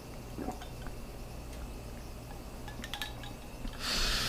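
Faint, light clinks and taps of kitchen dishes, then a short hiss that starts near the end.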